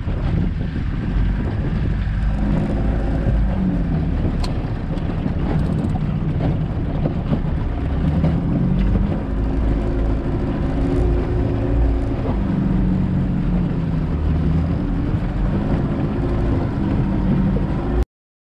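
Small outboard motor on an inflatable dinghy running, its pitch rising and falling, with wind rumbling on the microphone. It cuts off suddenly near the end.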